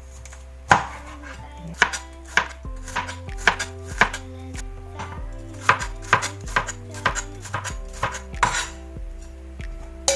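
A cleaver chops white bitter gourd on a plastic cutting board: a run of sharp, irregular knife strikes, about two or three a second.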